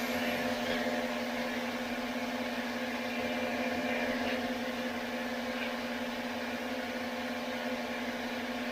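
Pressure washer running steadily, a constant machine hum with a strong low tone and an even hiss over it.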